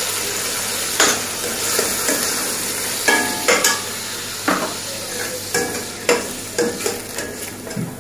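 Cubed chicken frying in hot oil with garlic paste, sizzling steadily, while a utensil stirs it with about ten irregular knocks and scrapes against the pan, a few with a short ring.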